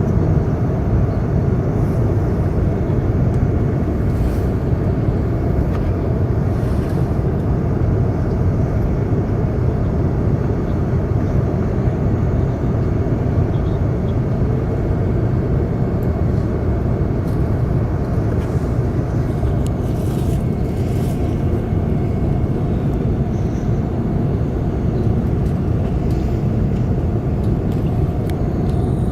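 Steady cabin noise inside an Airbus A380's upper deck during the approach: an even low rumble of airflow and engines.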